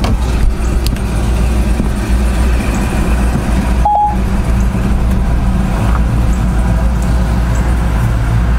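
Truck engine running steadily at idle, heard from inside the cab as a low, even hum, with a brief break about four seconds in.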